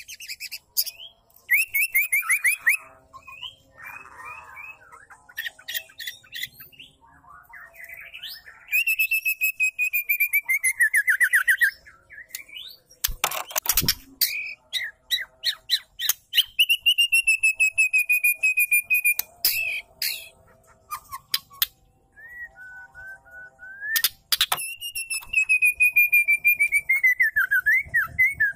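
Female white-rumped shama calling: three long, fast rattling trills that slowly fall in pitch, with shorter chattering calls between them. A sharp crackle sounds about halfway through.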